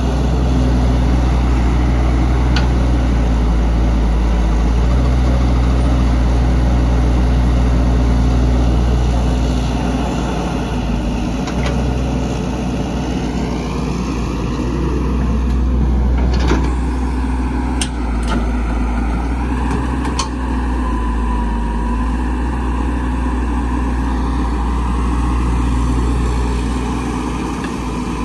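Heavy diesel engine of construction machinery running steadily under load. Its pitch dips and rises twice in the second half, and a few sharp knocks come around the middle.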